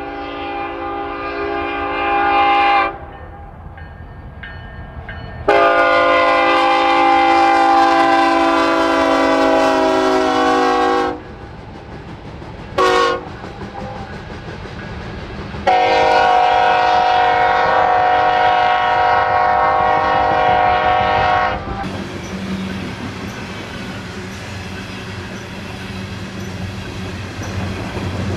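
BNSF diesel freight locomotive's air horn sounding a chord in the grade-crossing pattern: two long blasts, a short one, then a final long blast. After that the horn stops and the train's wheels clatter and rumble over the rails as the cars go by.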